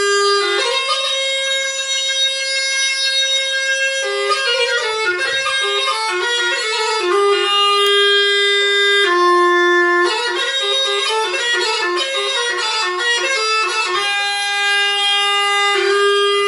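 Background music: a solo wind instrument playing one unbroken melody, long held notes linked by quick ornamented runs of short notes.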